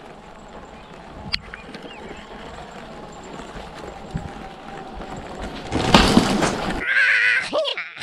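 Hardtail e-mountain bike riding along a grassy forest trail: a steady rumble and rattle of tyres and bike with faint bird chirps over it, rising to a loud rush of noise about six seconds in, followed by a short snatch of birdsong near the end.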